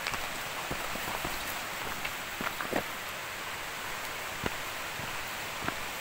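Steady rushing hiss of running water, with scattered light taps and crunches of footsteps on a dirt path.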